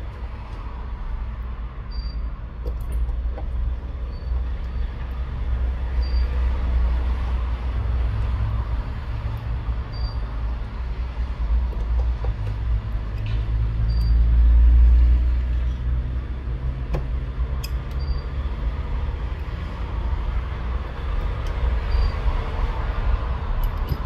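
Steady low rumble that swells about halfway through, with a few faint small clicks as a precision screwdriver drives tiny screws into a phone's midframe.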